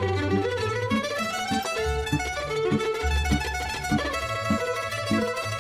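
Background music: plucked strings and fiddle over a bass line with a steady beat.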